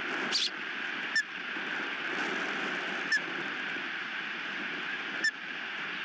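Osprey giving four short, sharp chirps, a second or two apart, each sliding slightly down in pitch, over a steady rush of wind on the microphone.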